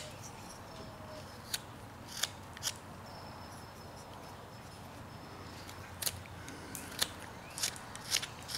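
Carving knife slicing chips off a small wooden figure: short, crisp snicks spaced unevenly, several coming close together near the end.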